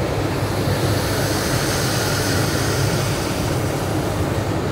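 Steady road noise inside a car cruising at highway speed on wet pavement: tyre hiss on the wet road over a low rumble.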